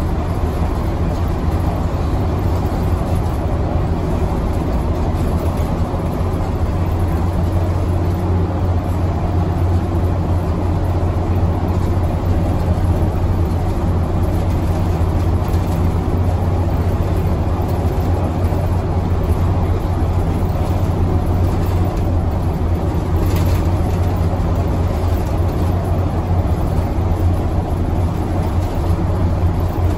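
City bus engine running with a steady low drone, heard from inside the bus cabin.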